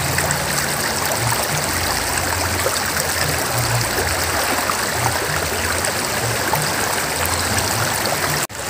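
Shallow river running over rocks: a steady rush of flowing water, cutting out for an instant near the end.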